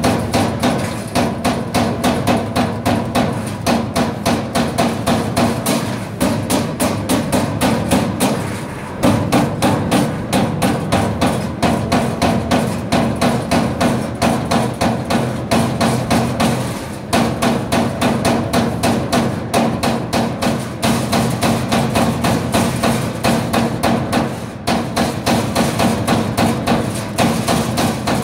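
Servo-driven CNC turret punch press punching sheet metal: a rapid train of sharp strokes, about four a second, broken by three brief pauses as the sheet is repositioned, over a steady machine hum.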